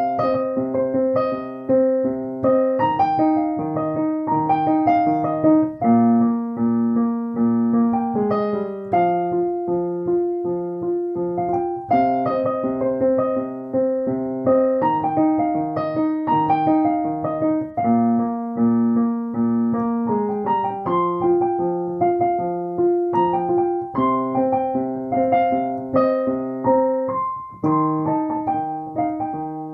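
Alesis Recital Pro digital piano played with a piano sound: a slow piece of broken chords over held bass notes, the chord changing about every three seconds in a repeating progression.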